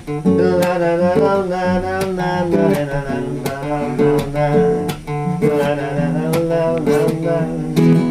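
Acoustic guitar strummed in a steady rhythm, with a wordless 'na-na-na' vocal melody over it in an instrumental break of a live song.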